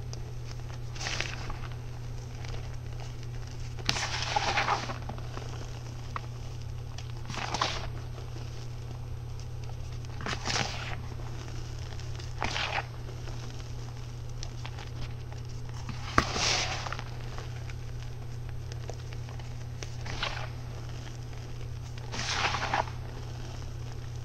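Packed clumps of fine powder crunching and crumbling as rubber-gloved hands squeeze them, in short crackly bursts every two to three seconds. A steady low hum runs underneath.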